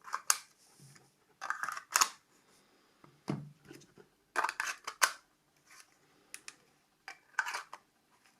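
Handling noise from Nokia 5210 phones' plastic bodies: about five short bursts of clicking and rubbing, with quiet gaps between.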